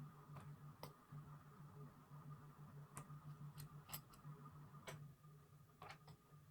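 Near silence: a steady low electrical hum, with about nine faint, sharp clicks and ticks at irregular intervals.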